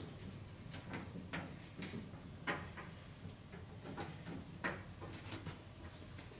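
A string of light, irregular knocks and clicks as gear is handled against a wooden barn wall to take down a small riding whip, the sharpest about two and a half and four and a half seconds in.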